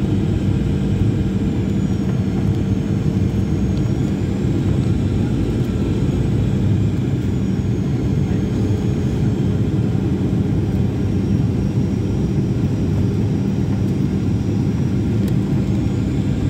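Steady cabin noise of a passenger aeroplane on its landing approach: a constant low drone of engines and rushing air, with a faint high whine that slowly dips and rises.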